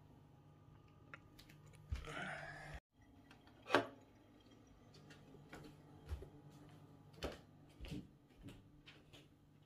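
Scattered light clicks and knocks from a plate of wet cat food being handled and carried, over a faint steady hum. There is a short scraping rush about two seconds in and a sharp click about four seconds in.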